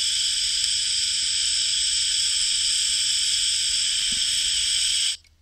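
TIG welding arc hissing steadily as weld metal is built up on thick steel, cutting off suddenly near the end.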